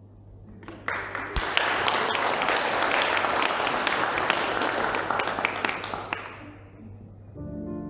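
Audience applauding, starting about a second in and fading out after about five seconds. Music starts near the end.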